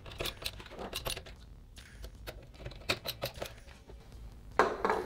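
Screwdriver tightening a power supply's mounting screws into a PC case: an irregular run of small metallic clicks and ticks, with louder handling noise near the end.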